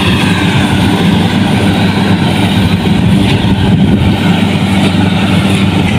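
Combine harvester engine running steadily: a loud, even drone with a low hum.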